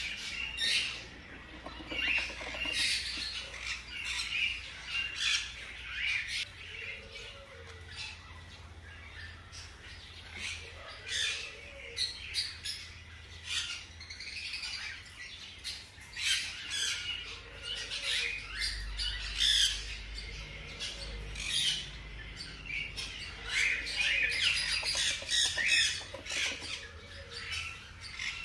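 Newborn hamster pups squeaking: many short, high-pitched squeaks in irregular clusters.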